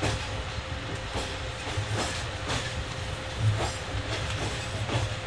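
Pakistan Railways passenger train running, its wheels giving sharp clacks over rail joints about every half second to second, over a steady low rumble and a faint steady hum.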